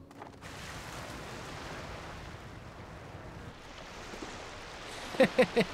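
Steady wind and sea ambience on a ship's deck, an even rushing hiss. Near the end, a short laugh of four or five quick pulses cuts in over it.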